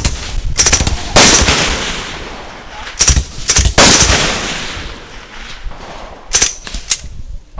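Smith & Wesson Model 76 9mm submachine gun firing single shots and quick short bursts. Each report trails off in a long echo.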